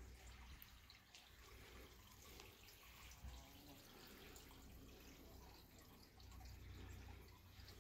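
Near silence: faint background hiss with a low rumble and a few faint ticks.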